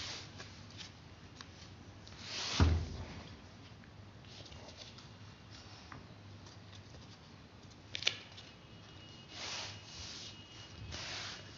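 Hands handling a zippered display-book folder with plastic sleeves: a dull thump about two and a half seconds in, a sharp click near eight seconds, and short rustles of the plastic sleeves near the end as pages are turned.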